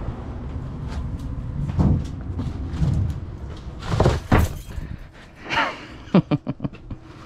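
Thuds and knocks of a person climbing down through a roof access hatch without a ladder, body and boots bumping the hatch frame. The heaviest thump comes about four seconds in, and a quick run of knocks follows near the end.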